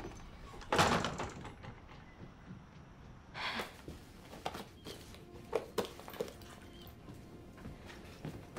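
A few knocks and thumps: a loud, short noisy thump about a second in, a softer one around three and a half seconds, then several small knocks.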